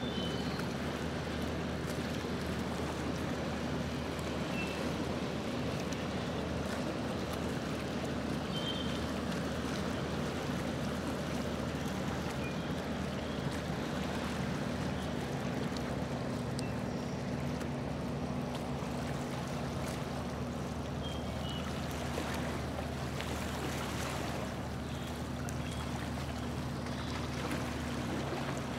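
Motorboat engine running steadily as the boat cruises: a steady low hum with water rushing along the hull, and a few faint high chirps.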